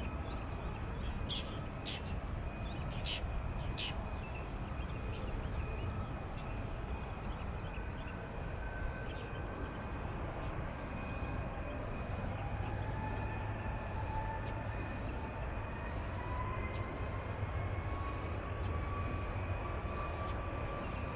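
Jet airliner engines running, a steady low rumble under a high whine that slowly rises in pitch through the second half. A few sharp clicks come in the first few seconds.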